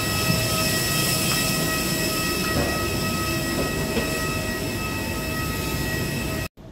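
Steady machinery noise at a parked airliner's door and jet bridge: an even rush of air with several high, steady whining tones over it. It cuts off suddenly near the end.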